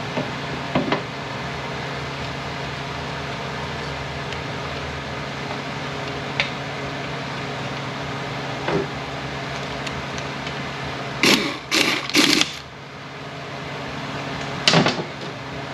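Steady hum of shop machinery with scattered light knocks of metal parts being handled on a steel workbench; about two-thirds through, three loud clunks and scrapes in quick succession, and one more near the end, as the aluminium transaxle case is worked by hand.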